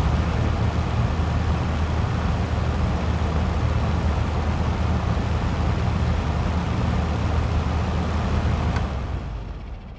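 Large electric bedroom fan running at speed: a steady rush of air over a low motor hum. Near the end a faint click, after which the fan winds down and fades as it is switched off.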